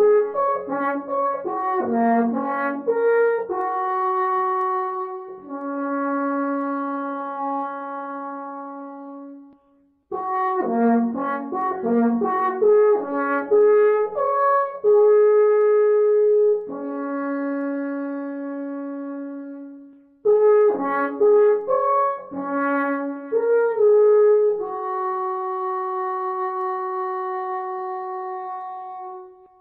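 A brass horn playing a melody in three similar phrases, each a run of short notes settling on long held notes, with brief breaks between phrases about ten seconds apart.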